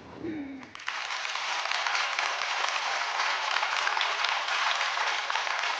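Studio audience applauding: a dense, even clapping that starts abruptly about a second in and keeps up steadily.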